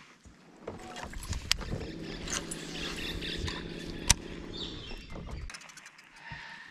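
Boat's electric trolling motor running with a steady hum for a few seconds, then cutting off abruptly, with two sharp clicks, the louder about four seconds in.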